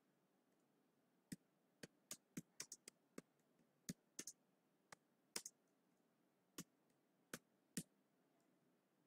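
Computer keyboard keys clicking as text is typed: an irregular run of sharp keystrokes, some in quick pairs, beginning just over a second in.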